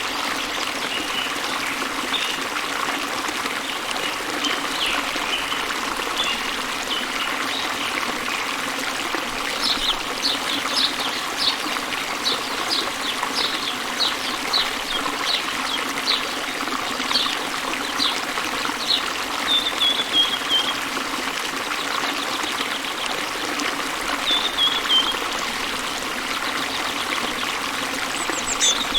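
A small stream trickling steadily, with songbirds calling over it: a run of quick, high chirps from about ten to nineteen seconds in, then a few short falling whistles.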